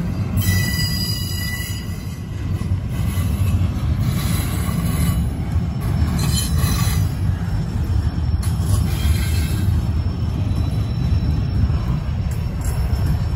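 Double-stack intermodal well cars loaded with containers rolling past close by: a loud, steady low rumble of wheels on rail, with brief high-pitched wheel squeal about half a second in and again around six seconds.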